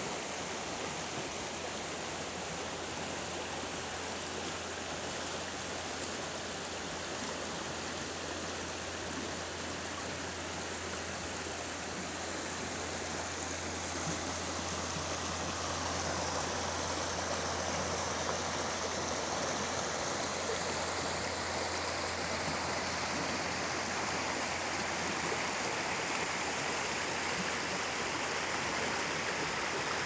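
Shallow river rushing over rocks, a steady wash of water noise that grows a little louder about halfway through.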